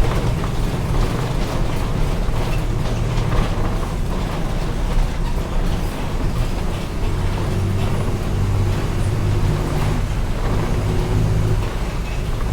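Mercedes-Benz OF-1722M city bus engine running under way, a steady low drone whose note shifts about two-thirds of the way through, with small knocks and rattles over road noise.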